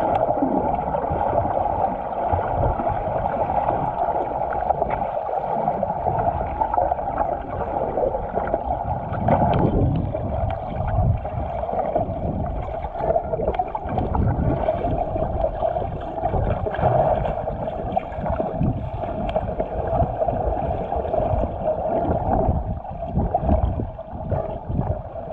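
Muffled underwater water noise heard through a snorkeling camera's housing: a steady rushing with irregular low sloshing and gurgling as the swimmer moves through the water.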